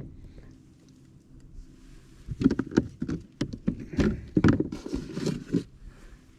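A hooked bass thrashing and splashing at the kayak: a quick, irregular run of loud splashes and knocks that starts about two and a half seconds in and lasts about three seconds.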